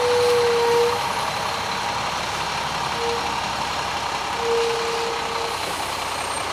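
Concrete mixer truck running with a steady rushing machine noise, and a beeping tone that sounds three times, irregularly spaced.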